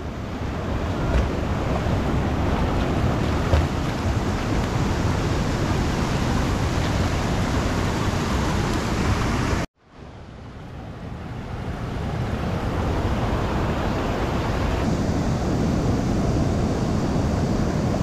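Rushing water of a rocky mountain stream running fast after rain, a steady loud wash. About ten seconds in it cuts off abruptly, then fades back in.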